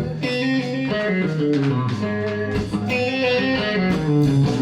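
Electric guitar playing a bluesy phrase of single notes over sustained lower tones, trying out a song's ending.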